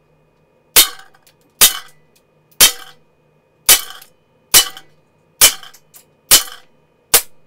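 Umarex Smith & Wesson 586 CO2 pellet revolver with a 6-inch barrel firing eight shots in a row, about one a second, each a sharp crack with a short tail.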